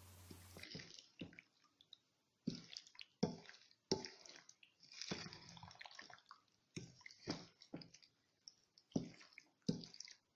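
Loquat pulp mixed with sugar, lemon juice and cinnamon being stirred, heard as a series of short, faint wet squelches at an uneven pace.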